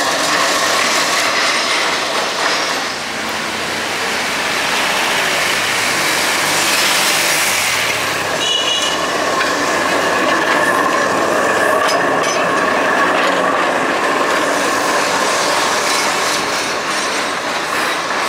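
Old street tram rolling past at close range, its steel wheels clattering over the rails, with a high, steady wheel squeal that is strongest in the second half.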